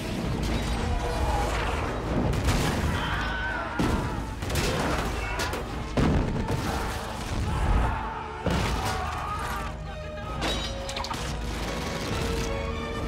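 Battle soundtrack of a medieval siege: a film score playing under several sudden heavy booms and crashes, the sound of siege-engine missiles being hurled and striking.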